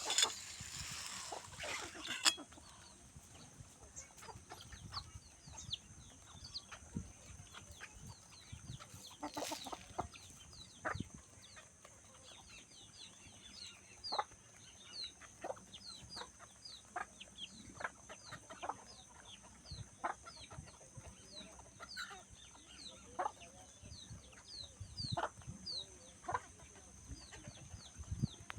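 Chickens clucking, with many short, high, falling chirps several times a second over a steady high hiss.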